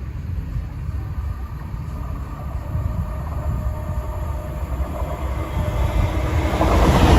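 Train approaching over the level crossing, its rumble growing steadily louder and becoming loud and full near the end as it reaches the crossing.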